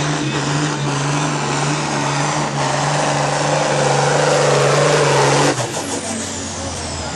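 Scania truck's diesel engine running hard under full load while pulling a weight sled, growing louder; about five and a half seconds in the engine drops off sharply to a lower note, and a high whistle falls in pitch afterwards.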